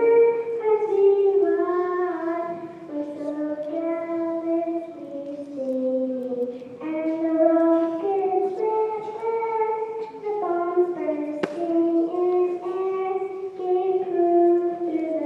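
A young girl singing the national anthem unaccompanied, holding long notes and stepping from pitch to pitch. A single sharp click comes about eleven seconds in.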